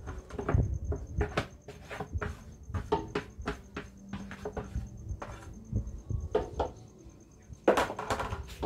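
Wooden spoon scraping and knocking against a bowl as thick guava pulp is emptied into a large aluminium pot: a run of irregular clacks and knocks, with a louder knock near the end.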